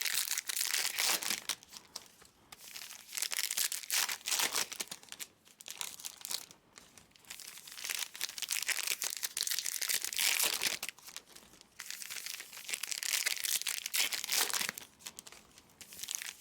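Crinkling plastic and foil packaging of trading-card boxes and packs being handled, in bursts of a second or two with short quieter gaps.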